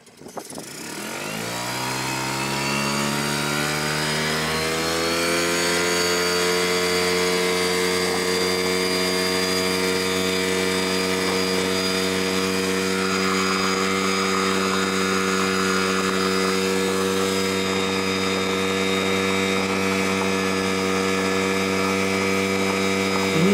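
Yamaha 3 hp single-cylinder two-stroke outboard running under way, pushing a loaded inflatable boat. Its pitch rises over the first few seconds as it picks up revs, then it holds a steady drone.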